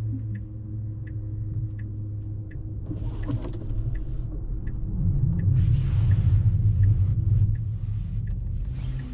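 Low rumble of a Tesla's tyre and road noise while driving on a snowy road, swelling louder about five seconds in. A faint light tick repeats evenly about every three quarters of a second.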